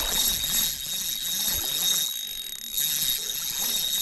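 Fishing reel working during a fight with a bass on 6-pound line: a mechanical ratcheting of the reel with a rhythm of about three strokes a second, pausing briefly partway through.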